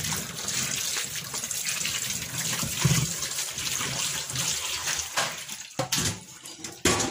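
Kitchen tap running into a plastic bowl of lemons in a stainless steel sink, water splashing as hands rub the lemons clean. The water stops a little after five seconds in, and there is a single knock near the end.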